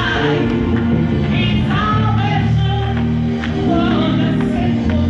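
Gospel music played in a hall: singing voices over a steady bass line and a regular drum beat.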